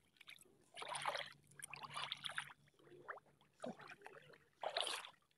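Shallow pond water splashing and sloshing in four short bursts as a person wades and works a gill net by hand.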